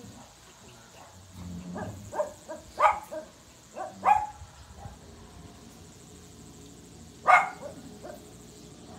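A dog barking in short, separate barks: several in the first half and one loud bark about seven seconds in.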